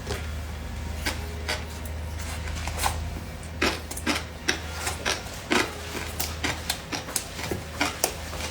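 Close-up eating sounds: irregular clicks and crunches of chewing, coming faster after a few seconds, over a steady low hum.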